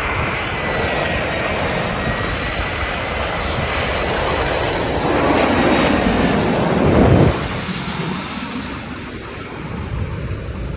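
Airbus A340-313's four CFM56 jet engines as the airliner passes by: a steady jet roar with a thin high whine, growing to its loudest about six to seven seconds in, then dropping off sharply and fading.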